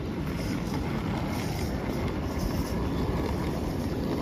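Steady outdoor ambience of a busy city plaza: a continuous low rumble with no distinct events, with some wind on the microphone.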